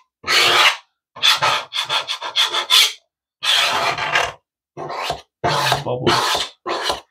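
Plastic squeegee scraping over static-cling window film on glass in a series of short strokes, some in quick runs, pressing out air bubbles and smoothing the film down.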